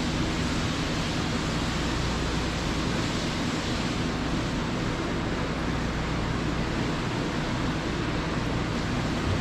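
Milking-parlor machinery running steadily: an even rushing noise with a low hum.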